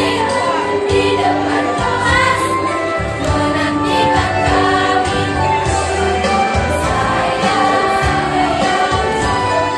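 Girls' school choir singing a song together, held notes moving from pitch to pitch, amplified through handheld microphones.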